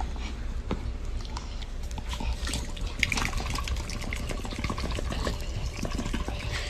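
Irregular wet clicks and rustling close to the microphone, over a low rumble of handling, as a hand rubs a black puppy's face and muzzle.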